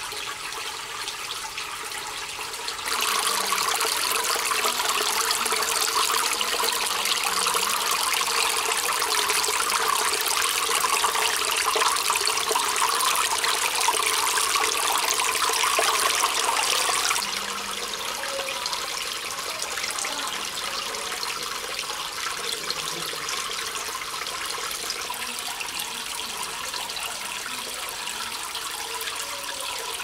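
Aquarium waterfall running: a steady splash of water pouring from the spillway into the tank. It grows louder about three seconds in and drops back softer about seventeen seconds in.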